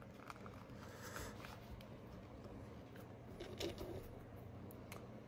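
Faint rustling of a leather toe piece being stretched and rubbed by hand over a boot last, with a few light clicks.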